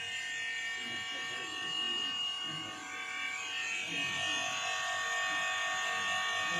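A steady electrical-sounding buzz made of several high tones held unchanged throughout, with faint voices of people talking beneath it.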